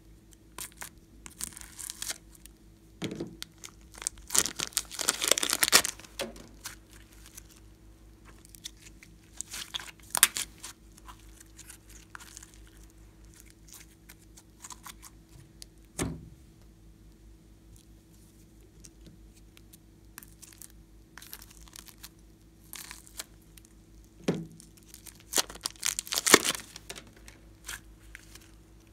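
Glossy slime being squeezed, kneaded and stretched by hand, giving irregular sticky crackles and tearing sounds as it pulls apart, loudest a few seconds in and again near the end.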